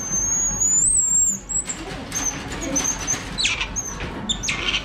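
High-pitched calls of a small monkey: one long, thin whistle that wavers slightly for about a second and a half, followed by several short high squeaks.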